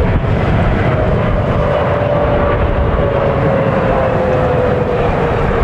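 Boeing 777 jet engines on landing approach: a steady whine that slowly falls in pitch, over a heavy low rumble.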